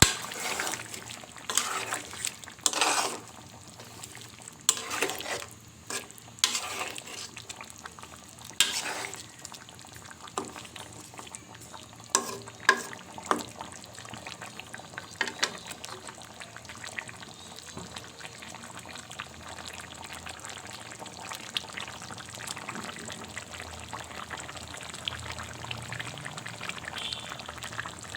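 Spatula stirring and scraping chicken curry in a pot on the stove, a run of separate strokes through the first half, then the curry simmering with a steady low sizzle.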